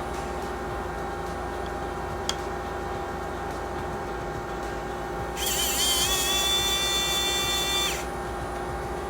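Small electric motor of a cordless precision screwdriver whirring for about two and a half seconds, starting a little past halfway: a high whine that wobbles in pitch at first, then holds steady. A single click comes a couple of seconds in, over a steady background hum.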